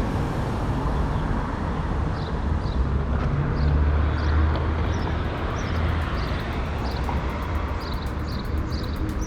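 Street ambience with a motor vehicle's engine running close by, its low hum swelling about three to five seconds in. Small birds chirp over it again and again.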